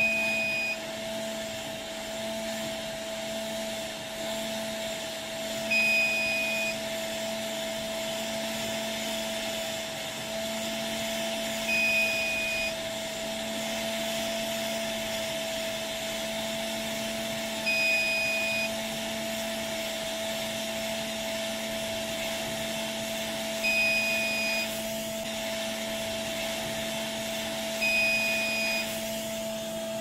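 Steady hum and airy hiss of a hot-air rework gun and BGA heating station running, while the heating station's buzzer gives a short high beep about every six seconds, six times in all.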